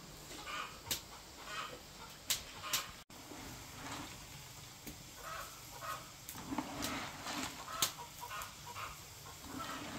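Chickens clucking in short, repeated calls, with a few sharp knocks among them; the loudest knock comes about eight seconds in.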